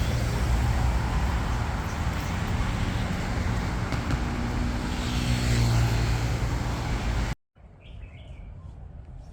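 Steady street traffic noise, with a vehicle engine passing by around the middle. Near the end it cuts off abruptly to a much quieter outdoor background with a few faint bird chirps.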